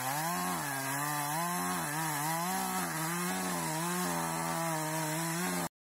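Chainsaw running as it cuts into a tree trunk, its engine pitch dipping and rising again and again as the chain bites into the wood. It cuts off suddenly near the end.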